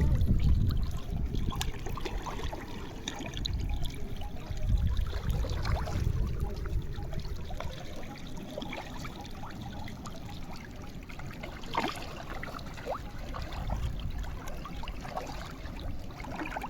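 Water trickling and splashing lightly, with many small irregular splashes and drips. A low rumble is strongest in the first seconds and then fades.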